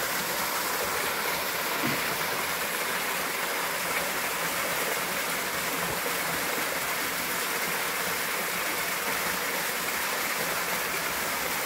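A small spring-fed mountain stream running steadily, a constant rush of water.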